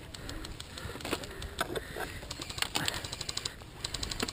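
Bursts of airsoft rifle fire on full auto, rapid even clicking at about a dozen shots a second, coming in short bursts in the second half. Underneath are scattered knocks and rustling of footsteps through undergrowth.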